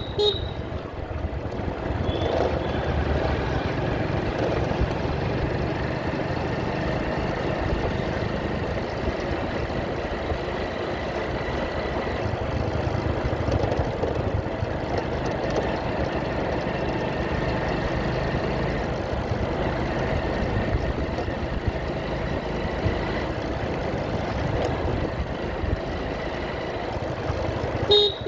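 Motorcycle engine running steadily while riding, with wind and road noise. A vehicle horn beeps briefly right at the start and again at the very end.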